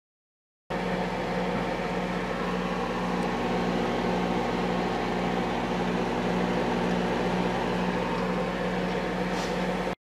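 A machine running with a steady hum and a low drone that pulses slightly, starting abruptly about a second in and cutting off suddenly near the end.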